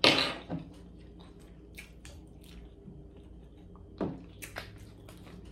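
Close-miked wet, squishy eating sounds of canned oysters, with scattered small clicks. A louder wet burst comes at the very start and more about four seconds in.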